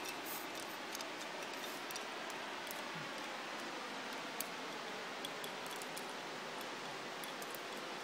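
Steady, even outdoor background hiss with a few faint clicks scattered through it.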